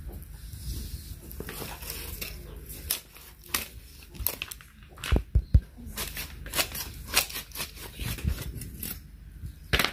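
Kitchen scissors snipping through the carcass of a slaughtered, plucked rooster: a run of sharp snips, the loudest three in quick succession about five seconds in.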